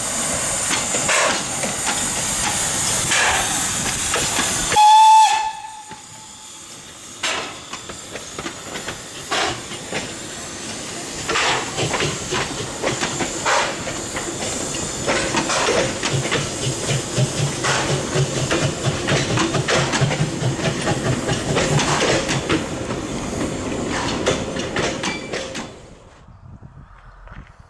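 Narrow-gauge Px29 steam locomotive getting under way: loud steam hiss, then a short whistle toot about five seconds in, then slow exhaust beats and the rattle of the passing carriages, which stops abruptly near the end.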